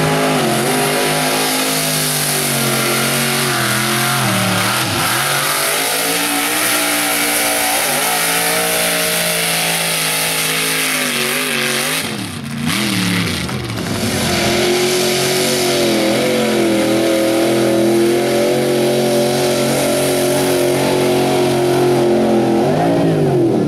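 Lifted mega truck engines revving hard under load as the trucks drive through a dirt hill-and-hole course, the pitch rising and falling with the throttle. About twelve seconds in the sound briefly dips, and then a truck's engine holds a steadier, higher note.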